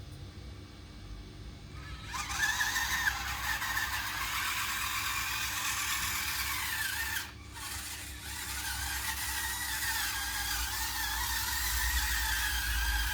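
Drive motors and gearboxes of a 1/16 scale RC bulldozer whining as it moves. The whine starts about two seconds in, its pitch wavers as the speed changes, and it cuts out briefly about halfway through before starting again.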